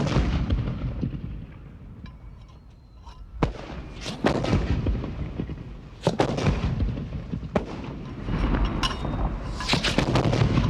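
Rifle shots on a firing range, fired singly at irregular intervals, each followed by a short echo, with a quick run of several shots near the end.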